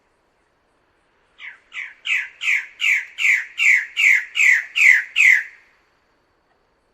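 Bird-of-paradise calling: a rapid series of about eleven short notes, each dropping in pitch, about two and a half a second, growing louder over the first few.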